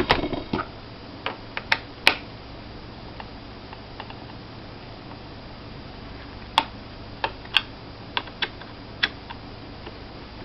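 Scattered sharp clicks and taps of a small Phillips screwdriver on the screws and plastic hard-drive cover of a Toshiba Satellite laptop's underside. The clicks come in a cluster at the start and again a few seconds later.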